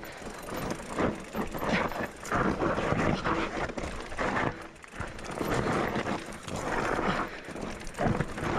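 Mountain bike descending a steep, loose, rocky trail: tyres crunching and sliding on loose gravel and dirt, with irregular knocks and rattles as the bike bumps over rocks.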